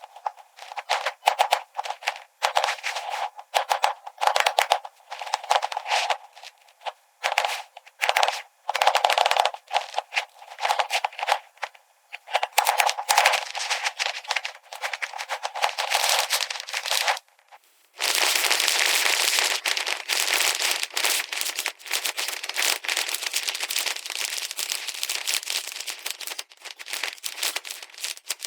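Crackling, clattering handling noises in short irregular bursts. After a brief pause about 18 seconds in, they give way to a continuous dense crackle.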